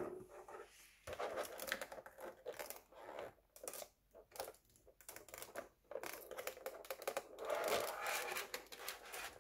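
Thin clear plastic blister tray crinkling and clicking as hands handle it, with a craft knife scraping at the tape that seals it. Irregular crackles and clicks, densest about six to eight seconds in.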